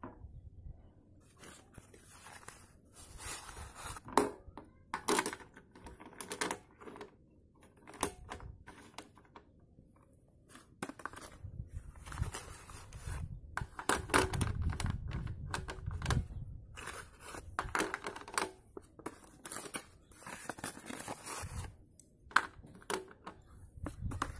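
Cardboard packet of slate pencils being torn open and handled, with repeated scratchy rustles and sharp clicks as the slate pencils are taken out and set down on a plate.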